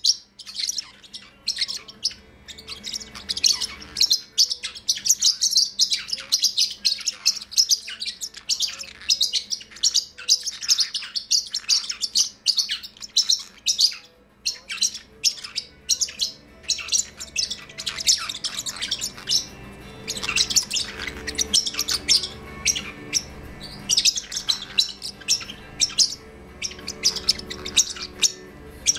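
Parrotlets chirping in a rapid, almost continuous stream of short high chirps, pausing briefly at the start and again about halfway through.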